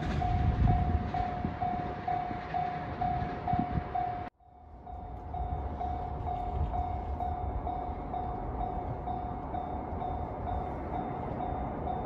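Level-crossing warning bell ringing steadily at about two dings a second, over the rumble of a passing train. The rumble stops abruptly about four seconds in, and the bell rings on over a quieter background.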